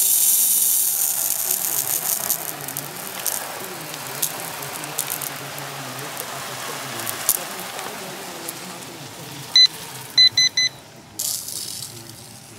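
Water spray from a lawn sprinkler head hissing loudly at first, then fading to a steadier, softer hiss. About ten seconds in come four short high beeps, one and then three in quick succession, followed by another brief burst of spray hiss.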